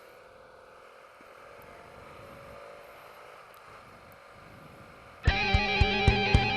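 Faint motorcycle engine and wind noise for about five seconds, then rock background music with electric guitar and drums cuts in abruptly and much louder.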